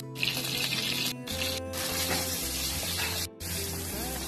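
Vegetable pieces frying in hot oil in a wok, a steady hissing sizzle, over a background Hindi film song with a steady bass line. The sound drops out for an instant a few times.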